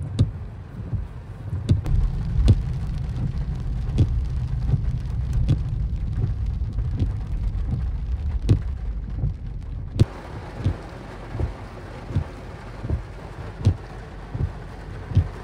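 Steady rain falling, with scattered drops knocking sharply close by over a deep low rumble. About ten seconds in, it cuts to rain heard from a moving vehicle: a higher, even hiss with a knock repeating about every three-quarters of a second.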